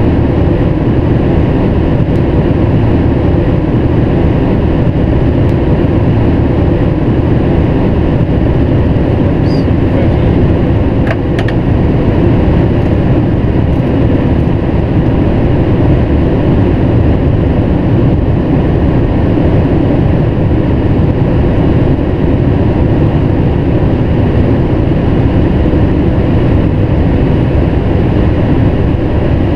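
Steady, loud rush of airflow and engine noise inside the cockpit of a Boeing 777-300ER descending on approach with its flaps extended.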